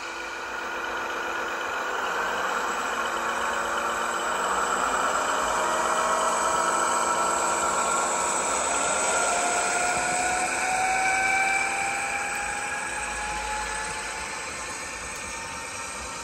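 Sound-equipped H0 model of a BR 216 diesel locomotive running with its train: the decoder's diesel engine sound, with a whine that rises slowly in pitch, over the rolling noise of the wheels on the track. It grows louder toward the middle as the locomotive passes and fades a little as the wagons follow.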